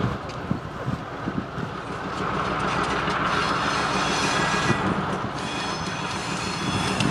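Two EMD GP15-1 diesel locomotives, each with a 12-cylinder two-stroke engine, running slowly with a steady low drone. Their wheels squeal high on the curve from about two and a half seconds in, break off briefly, and then squeal again. A few clicks of wheels over the rail joints come through.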